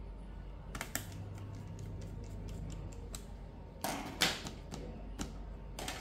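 Small clicks and knocks of a 2.5-inch SSD and a screwdriver being handled in an open laptop's drive bay as the drive is seated, loudest in a cluster about four seconds in, over a steady low hum that starts about a second in.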